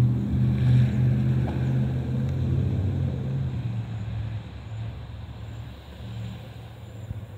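Airbus A320neo's Pratt & Whitney PW1100G geared turbofan engines passing overhead as a low, steady rumble that fades steadily as the jet moves away.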